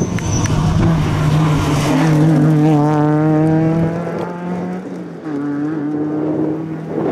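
Renault Clio rally car at full throttle on a stage, its engine note held high and steady, dropping briefly about five seconds in before pulling hard again.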